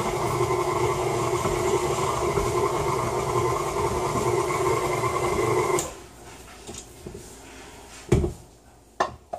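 KitchenAid tilt-head stand mixer running steadily as its dough hook kneads a sticky pretzel dough; the motor cuts off suddenly about six seconds in. A sharp knock and a couple of lighter clicks follow near the end.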